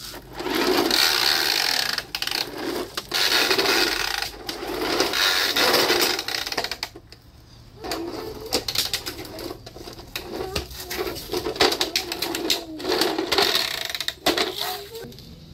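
Sand and soil being scraped and scooped by hand, in long gritty strokes, then many small clicks and ticks of grit and pebbles being knocked about over the second half.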